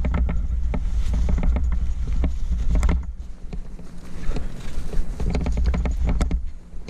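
Close handling noise of a cat being bagged: a cloth rescue bag and climbing gear rustling and clicking right at a helmet-mounted microphone, over a low rumble that drops away about three seconds in.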